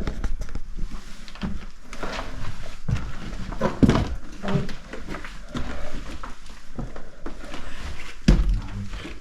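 Footsteps and handling noises in a small room: irregular knocks, scuffs and scrapes, with a heavier thud about four seconds in and another just after eight seconds.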